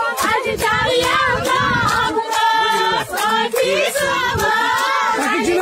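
A crowd of women chanting a slogan song together, many voices at once, with sharp beats about three a second keeping time.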